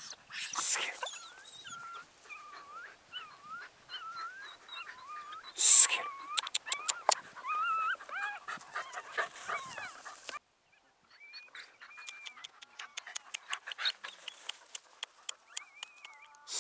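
Canine whining and yipping: high, wavering whines with sharp clicks among them, in two stretches broken by a brief gap partway through.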